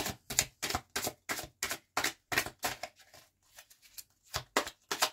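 A deck of divination cards being shuffled by hand: a quick run of crisp card slaps, about four a second, with a brief lull about three seconds in before they resume.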